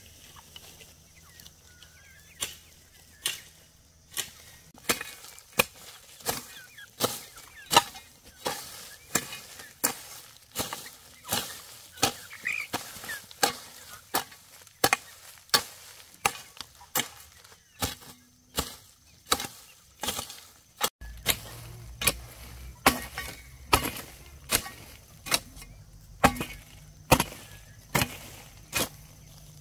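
A hand tool chopping in steady, repeated sharp strokes, about three every two seconds. A low steady hum comes in about two-thirds of the way through.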